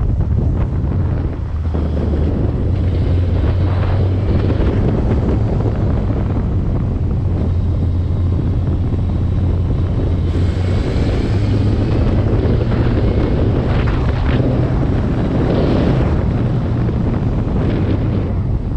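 Vehicle engine running steadily under way, with heavy wind buffeting the microphone.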